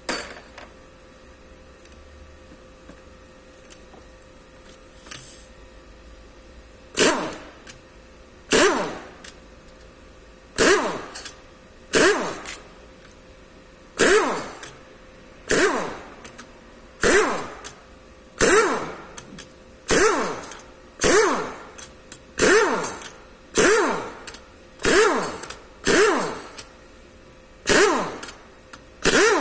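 Impact wrench run in short bursts, one after another about every second and a half, loosening the camshaft bearing cap bolts; each burst ends in a falling pitch as the wrench winds down. The bursts start about seven seconds in.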